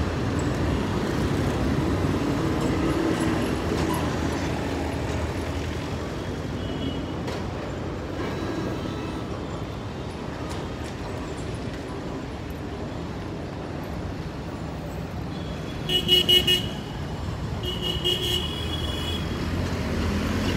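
Busy street traffic noise with a steady rumble of engines. Near the end a vehicle horn sounds twice: a short run of quick toots, then a longer honk.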